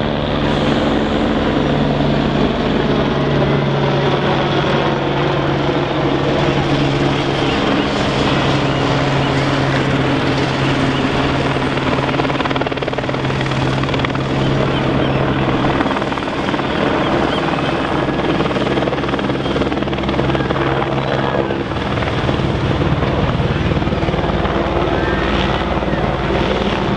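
Steady engine drone with a rapid chopping pulse, its pitch drifting slowly, over faint crowd chatter.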